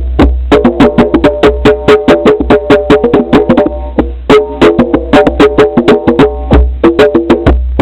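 Loud music with a fast, busy percussive beat of sharp knocking hits over short struck melodic notes and a deep bass line.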